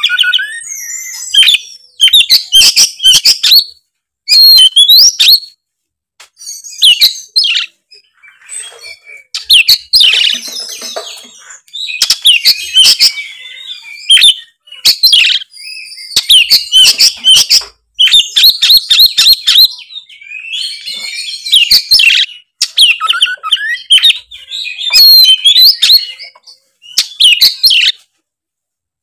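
Oriental magpie-robin singing a loud, full-voiced song of varied whistles and rapid chattering notes, delivered in phrases of a second or two with brief pauses between them.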